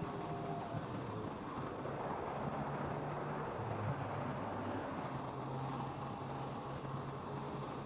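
Kawasaki motorcycle engine running under way, its note dipping lower about halfway through and then rising again, with steady wind rush on the microphone.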